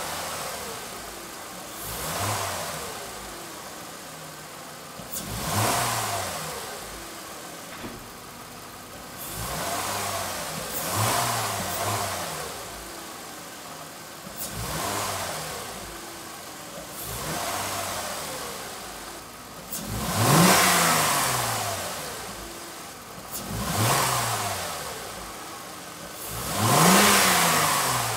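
A Mercedes-Benz C300 W204 V6 idling and being blipped about every two to three seconds, each rev rising and falling with a rush of induction noise from the open twin cone air filters of a newly fitted cold air intake. The last few revs are the hardest and loudest.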